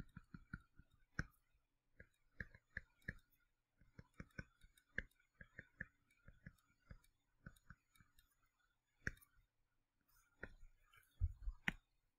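Faint, irregular clicks and taps of a stylus pen on a tablet screen during handwriting.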